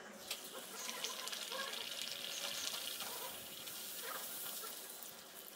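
Poori dough sizzling as it deep-fries in hot oil in a cast-iron pan, the sizzle rising just after the dough is slipped in and carrying on as a steady hiss with small crackles.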